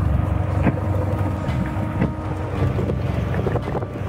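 Wind buffeting the microphone of a camera aboard a boat at sea, over a steady low rumble, with short gusts now and then.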